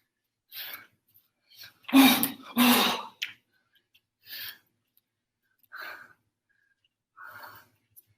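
Short, forceful exhalations and grunts from a person training: two loud voiced grunts in quick succession about two seconds in, then a few fainter, hissy breaths spaced out over the rest.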